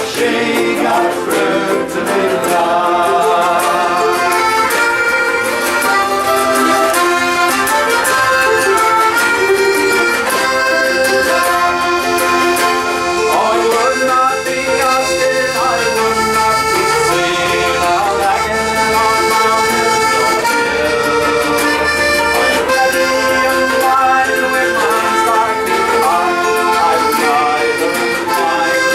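A folk band playing a song led by accordion, with held chords and changing notes.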